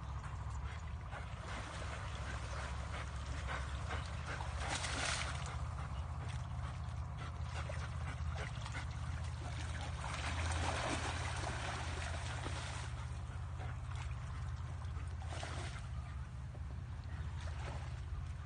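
Water splashing and sloshing in a few bursts over a steady low rumble.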